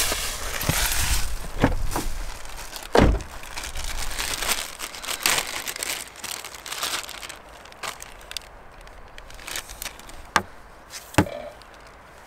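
Plastic zip-top bag crinkling and rustling as it is handled, along with sharp knocks of items set down on a plastic cutting board and cooler lid. The loudest knock comes about three seconds in.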